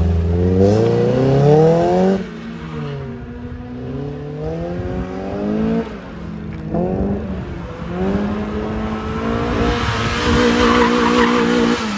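Mazda Miata's four-cylinder engine accelerating hard through an autocross run, the revs climbing and dropping again with each gear change. Near the end the car comes back louder, with tires squealing through a turn.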